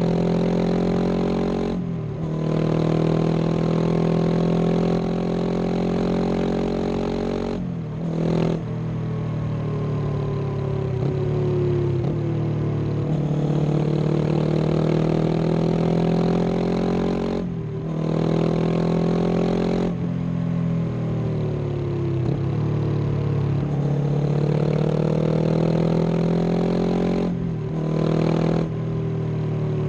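2022 Honda CB500X motorcycle's 471 cc parallel-twin engine and exhaust running under way, its pitch slowly rising and falling. The note breaks off briefly four times, once for about two seconds midway, as at gear changes.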